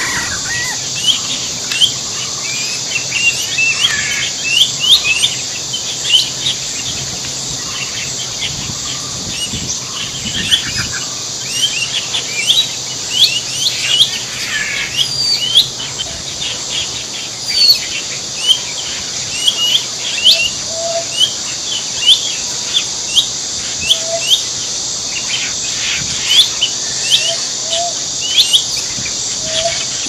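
Many wild birds chirping, quick short rising chirps throughout, over a steady high-pitched insect drone. A few short, lower notes come in during the second half.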